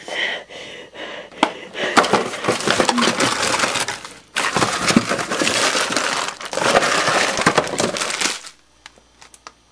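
Plastic liner bag of a cracker box crinkling and rustling as it is handled and pulled open, in two long stretches with a brief pause about halfway, then dying down to a few small crackles.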